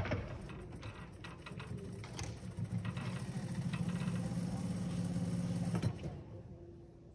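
A motor running steadily, with scattered clicks and knocks; it grows louder and then stops suddenly about six seconds in.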